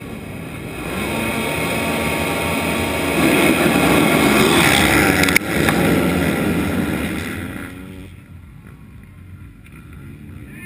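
A full gate of motocross bikes revving and accelerating away together from the start. The many engines build to a loud peak a few seconds in, with a sharp knock about five seconds in, then fade from about eight seconds as the pack leaves.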